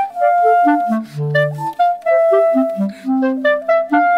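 Background music: a bouncy melody of short and held notes over a low bass note that returns about every two seconds.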